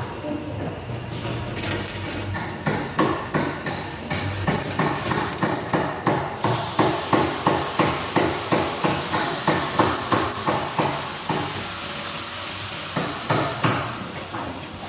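Repeated hammer blows on steel, about three a second and densest in the middle, over the steady crackle of an arc-welding electrode running a weld.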